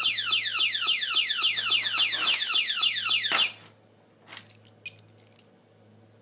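Menvier TS690 intruder alarm panel's built-in speaker sounding its tamper alarm after the panel lid was dislodged. It gives a loud, rapidly repeating falling sweep, about four a second, that cuts off suddenly a little over halfway through. A few light clicks follow.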